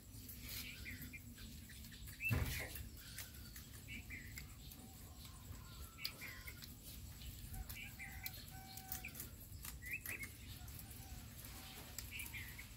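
Rabbits chewing and tearing fresh leafy greens, a soft crisp crunching and rustling of leaves. Birds chirp now and then in the background, and a dull thump sounds about two seconds in.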